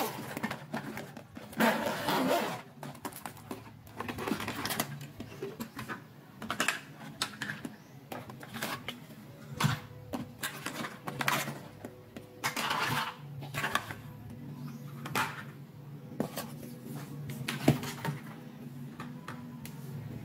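Hands handling a clear vinyl zippered pouch of plastic doll toys. The vinyl crinkles, the zipper opens, and plastic pieces click and knock together in irregular bursts, with one sharp click near the end.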